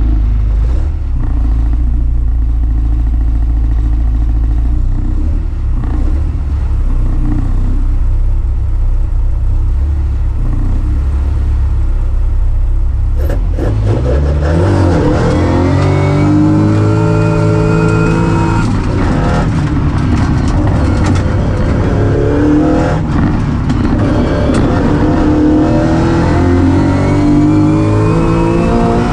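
Race car engine heard from inside the cabin, running steadily at the start line. About 13 seconds in it launches hard, revving up and climbing through the gears, the pitch rising then dropping at each upshift.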